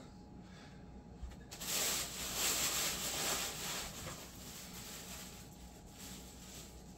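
Packaging rustling as parts are handled in the box, starting about a second and a half in, lasting about three seconds, then fading.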